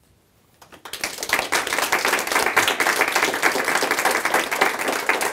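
Small audience applauding by hand, the clapping starting about a second in and holding steady.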